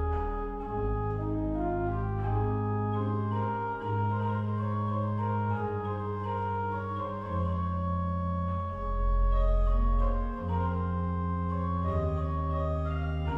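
Organ music: slow, sustained chords over held bass notes that change every second or two, with a deep low bass note the loudest part about nine seconds in.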